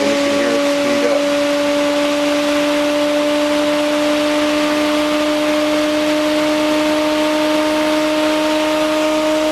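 Bedini-Cole style window motor with a magnetically levitated rotor running at speed: a steady hum whose pitch creeps slowly upward as the rotor keeps gaining speed.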